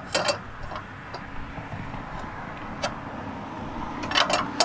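Metal clinks and clicks of a steel handle wrench working the strut-tension nut on a Hensley Arrow weight-distribution hitch as it gets its final half turn of tightening. There is a cluster of clinks at the start, a few light ticks between, and another cluster near the end, over a steady low rumble.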